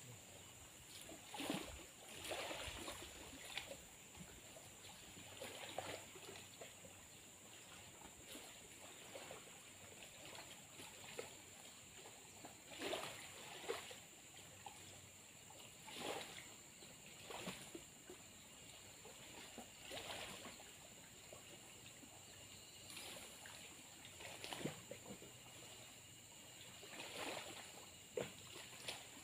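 Small river waves lapping at a muddy bank: soft, irregular splashes every few seconds, with a faint steady high tone underneath.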